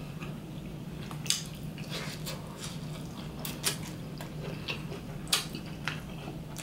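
Close-up eating sounds: a person chewing a mouthful of curry turkey wing, with scattered soft clicks from the mouth and a wooden utensil against the plate. A steady low hum runs underneath.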